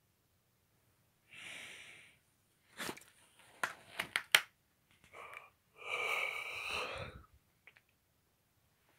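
Paper rustling and sharp handling clicks as a page of a spiral-bound sketchbook is turned and held up: a short rustle, a quick run of clicks, then two longer rustles.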